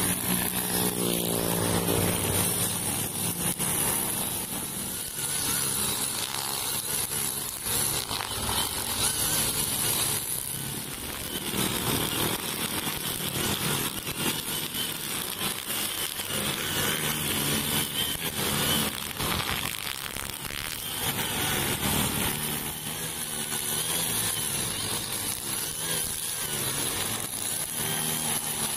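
Four-stroke brush cutter engine, a Honda GX35, running steadily while its nylon line cuts grass and weeds along a road curb. Road traffic passes alongside.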